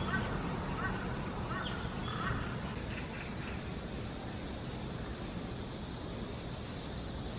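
Outdoor ambience: a steady high insect chorus, with a bird giving short repeated calls about every half second to second through the first three seconds. The insect sound shifts in level about a second in and again about three seconds in.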